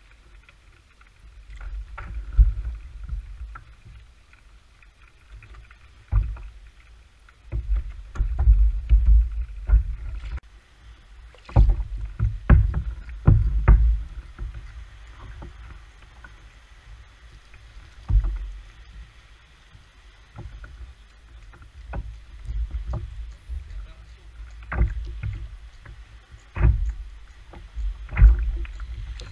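Water sloshing and slapping against a sit-on-top fishing kayak's hull in irregular low surges, with sharp knocks and clicks as the angler shifts about and handles rod and gear on the boat.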